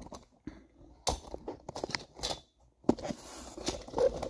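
Handling noise as the camera is picked up and repositioned: irregular clicks, knocks and rustling, with a sharp knock about a second in and another near three seconds.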